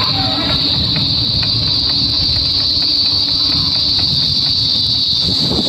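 A steady, high-pitched insect chorus that never breaks, over a low rumble of wind on the microphone from riding a bicycle.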